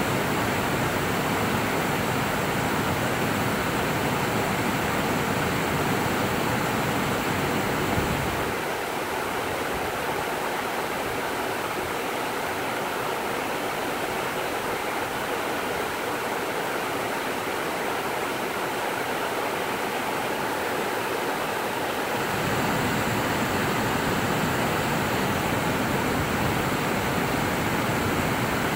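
Steady rush of river water pouring over low, stepped rock-ledge falls into white-water rapids. A low rumble underneath drops away about eight seconds in and returns near the end.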